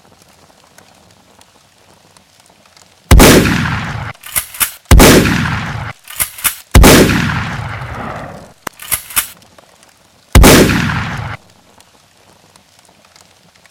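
Title-sequence sound effects: four loud sudden impacts, each dying away over about a second, with pairs of short sharp clicks between them.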